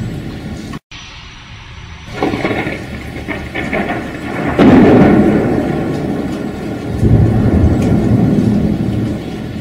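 Thunderstorm rain with rolling thunder. The sound drops out for an instant about a second in. About four and a half seconds in a loud thunderclap breaks and rumbles away, and another rumble swells near the end.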